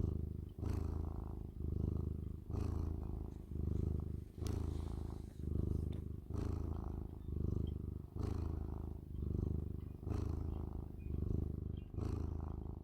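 A domestic cat purring close up, a low rumble that swells and breaks off about once a second with each breath.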